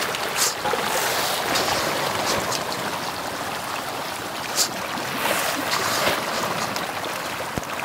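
Pond water churning and splashing as a dense crowd of tilapia jostles at the surface, waiting to be fed, with a few sharper splashes standing out.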